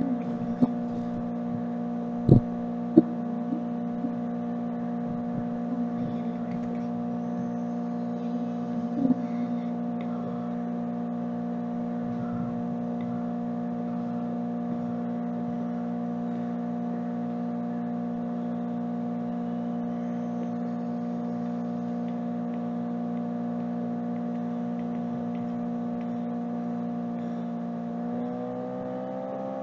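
A steady hum of several held tones that glides slightly up in pitch near the end, with a few light clicks in the first few seconds.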